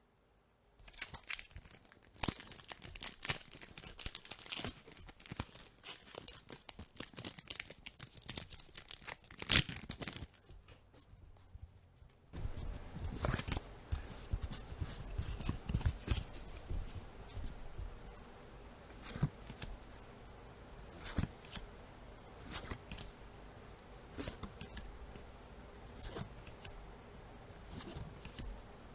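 Foil booster-pack wrapper of Pokémon trading cards crinkling and tearing open for about the first ten seconds. After a short lull, cards are slid and flipped through one by one, with soft slides and taps over a low steady hum.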